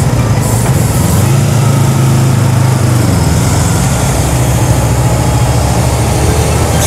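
Yamaha MT-03 motorcycle engine running under way, with a dense rush of riding noise over it. The engine note rises about a second and a half in and eases off again about three seconds in.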